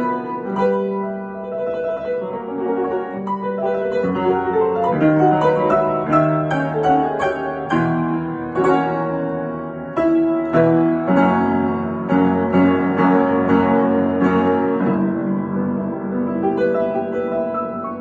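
Upright acoustic piano played in a fast, busy improvisation in F sharp major, with quick runs of notes over held chords.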